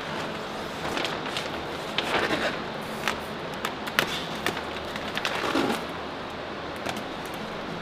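Thick foil packaging wrap crinkling and tearing as it is pulled off by hand, with many sharp crackles.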